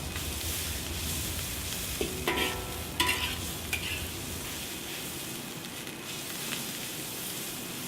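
Egg noodles sizzling as they stir-fry in a hot wok, with a metal spatula clanking and scraping against the wok a few times between about two and four seconds in.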